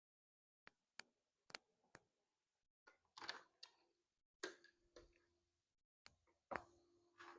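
Faint sharp clicks and knocks, roughly two a second at first, then scuffing and rattling handling noises, with a short steady tone twice in the second half.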